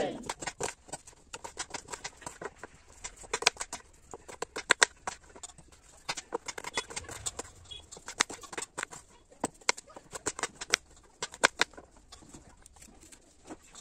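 Kitchen knife cutting red onion on a plastic cutting board: quick, irregular knocks of the blade hitting the board, several a second.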